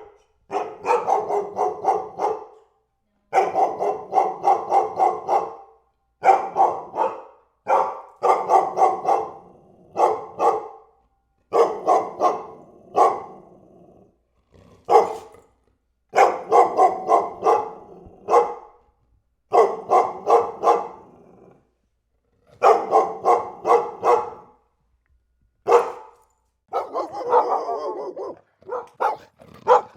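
A dog barking in quick runs of several barks each, the runs separated by short silent gaps.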